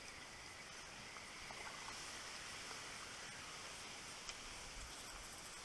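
Quiet outdoor background: a faint steady hiss with a thin high steady tone and a few soft ticks.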